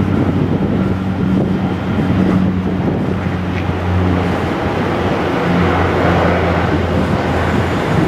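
Saab 340B twin turboprop (GE CT7 engines) at takeoff power on its takeoff roll: a loud, steady propeller drone with a low hum and its overtone over a broad engine and air rush.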